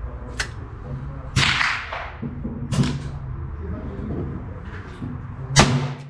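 Four sharp .22 LR revolver shots, spaced over a few seconds, the loudest near the end, over a steady low hum.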